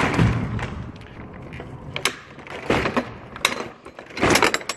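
Metal clanks and rattles from the rear roll-up door of a U-Haul 10-foot box truck as it is shut and its latch worked. There are a few separate knocks, then a quick cluster of clatters near the end.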